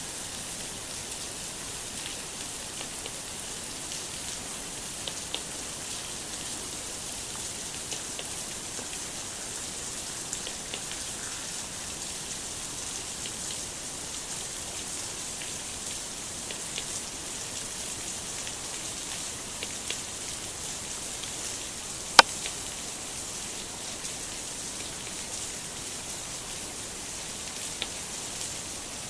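Steady rain falling on leaves, an even hiss with scattered faint drop ticks. One sharp, loud click about three-quarters of the way through.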